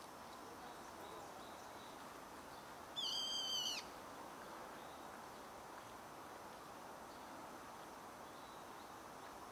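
A bird gives one call about three seconds in, just under a second long, held on a high pitch and dropping at the end. Faint steady background noise runs under it.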